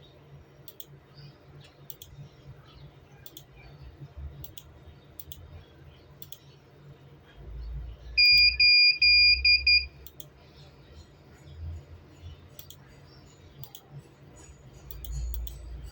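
Computer mouse clicking slowly and irregularly, and about eight seconds in an electronic beeper sounds four loud, high beeps in quick succession.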